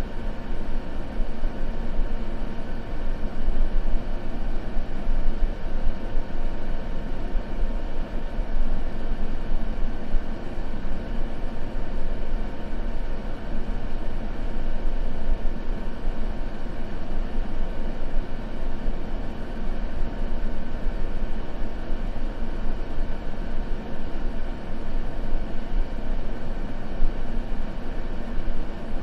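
Continuous white-noise track: a steady, even rush of noise, heavier in the low end, with no breaks or changes.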